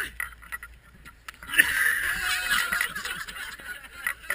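A man gagging and coughing hoarsely while doubled over after swallowing something in an eating challenge, loudest for a second or so from about a second and a half in.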